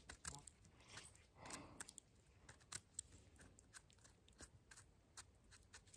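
Faint crisp scrapes and small clicks of a knife blade scraping and trimming the stem of a freshly picked wild mushroom, cleaning off the dirt.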